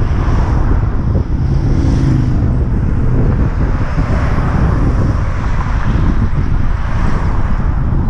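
Wind buffeting the microphone and road noise while riding along a road. Passing traffic is heard briefly in the first couple of seconds.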